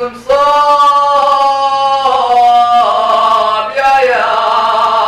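A man singing 'ataba, the Levantine folk vocal style, unaccompanied: long held, ornamented notes that bend slowly in pitch, with a short break about four seconds in before the line carries on.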